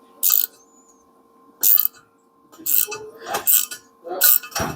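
Sharp metallic clicks and clinks from a small socket ratchet and its sockets being handled, as the ratchet is readied to back out nuts welded onto broken exhaust studs. The clicks are scattered at first, then several come in quick succession in the second half.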